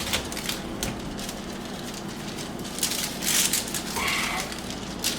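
Hands wrapping and stretching silicone self-fusing repair tape around a plastic sink drain pipe: scattered clicks and rustling, with a louder rustle about three seconds in, over a steady low hum.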